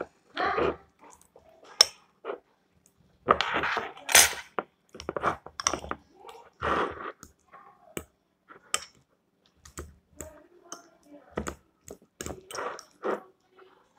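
Spoon clicking and scraping against a bowl in irregular strokes while mashing avocado flesh.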